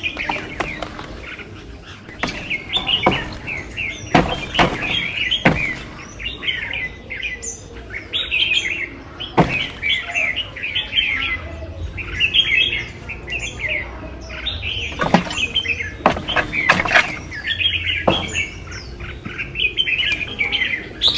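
Birds chirping busily, with quick repeated chirps throughout, and a few sharp knocks or clacks scattered among them.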